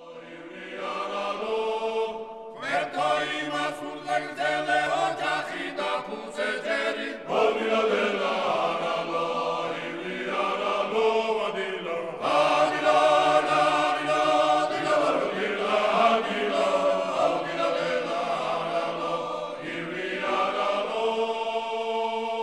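Music: a slow, chant-like choral piece of sustained chords that change every few seconds.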